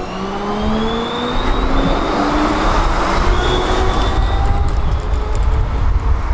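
Tram pulling away past the stop and accelerating. Its traction motors give a whine of several tones that rise in pitch together over the first couple of seconds and then level off, over the rolling noise of the wheels on the rails.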